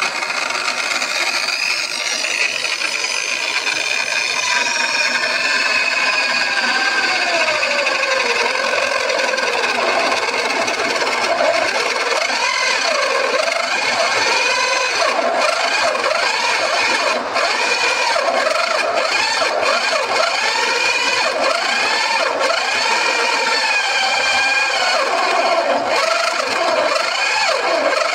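Power tool spinning a large boring bit into a clamped wooden block, cutting a hole. The motor's pitch repeatedly dips and recovers as the bit bites into the wood.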